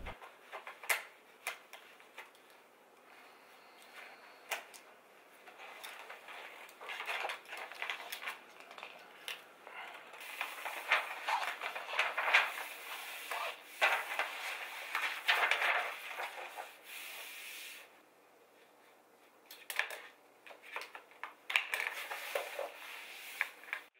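Adhesive vinyl architectural film (3M DI-NOC) being worked by hand: irregular rustling and scraping as it is trimmed with a knife at the floor, its paper liner peeled away and the film pressed onto the column, with scattered small clicks. There is a short quiet pause a little past the middle.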